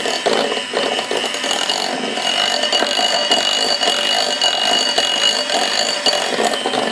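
Electric hand mixer running at low speed, its beaters churning through thick chocolate cake batter in a glass bowl, with a steady high-pitched whine over the rattle.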